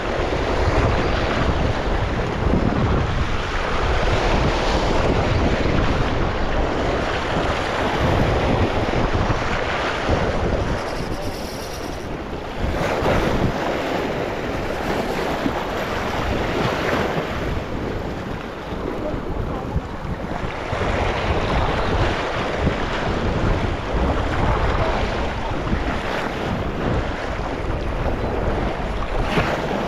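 Small waves washing in surges over a rock ledge at the water's edge, swelling and easing every few seconds, with wind buffeting the microphone.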